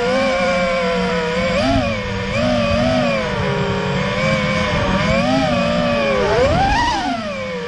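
FPV racing quadcopter's brushless motors whining as they are heard from the onboard camera, the pitch rising and falling with each throttle change, with a sharp climb and drop about six to seven seconds in.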